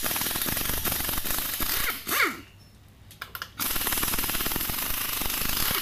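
Pneumatic impact wrench hammering rapidly as it loosens the lug nuts of a rear wheel: two long runs of the hammering, broken about two seconds in by a pause of a second and a half with a brief squeal and a few clicks.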